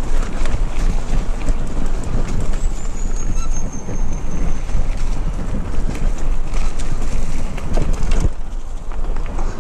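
Mountain bike riding down a dirt forest singletrack: wind buffeting the camera microphone over the rolling of knobby tyres, with frequent clicks and rattles from the bike over roots and bumps. A faint high whistle slides down in pitch for a couple of seconds from about two and a half seconds in.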